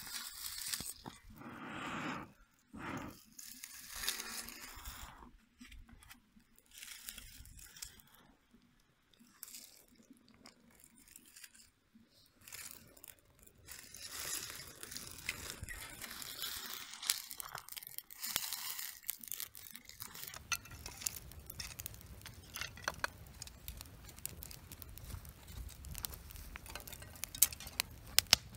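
Dry leaves and cedar twigs crunching and rustling as they are handled and piled onto smoking tinder in a steel fire pit. For the last several seconds the kindling fire crackles, with sharp pops coming more often near the end.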